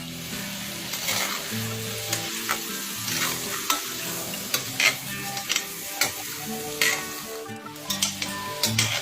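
Food sizzling in a hot pan while it is stirred, the utensil clicking and scraping against the pan many times, over quiet background music.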